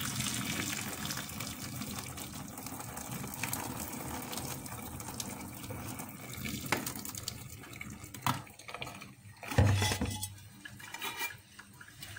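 Dirty parboiling water poured off a pot of omena into a stainless-steel sink, a steady splashing stream that thins out over several seconds. Then a few clanks and knocks, the loudest about ten seconds in.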